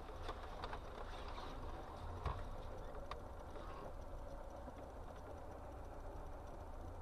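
Low, steady rumble of a car engine idling, heard from inside the stationary car, with a few faint clicks in the first second and a single sharper knock about two seconds in.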